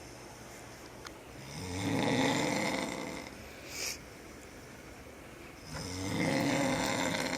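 A man snoring in his sleep: two long snores about four seconds apart, with a short hiss of breath between them.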